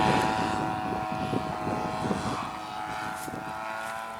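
30cc gasoline two-stroke engine of an RC model airplane running in flight, a steady propeller drone that fades as the plane draws away. Wind buffets the microphone underneath.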